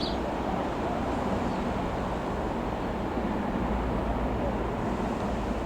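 Light aircraft engine running with a steady drone.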